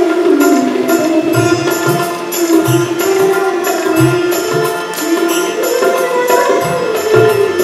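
A woman singing an Indian song into a microphone, holding long notes, over musical accompaniment with a steady tabla-like drum beat and high percussion ticks.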